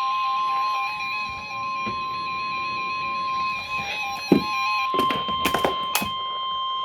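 NOAA Weather Radio's steady 1050 Hz warning alarm tone coming through a Midland HH54VP handheld weather radio, with the radio's own electronic alert beeps stepping up and down in pitch on top. The beeps stop about five seconds in, with a thump and a few sharp clicks around then, while the alarm tone carries on.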